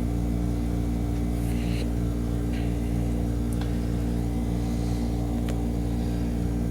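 Steady electrical or appliance hum made of several fixed low tones, with faint rustles about one and a half and two and a half seconds in and two light clicks, typical of trading cards being handled.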